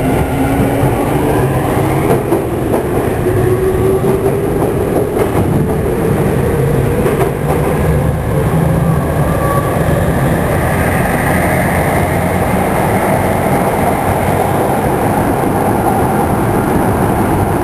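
Tokyu 5000 series electric train heard from inside a motor car as it pulls away: the traction motor whine climbs in pitch over the first several seconds of acceleration, then gives way to steady running noise with wheel and rail-joint clatter.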